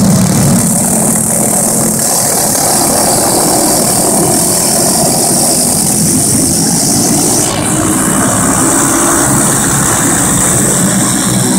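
Engines of flathead-powered dirt-track race cars running at racing speed around the oval, a loud, steady drone.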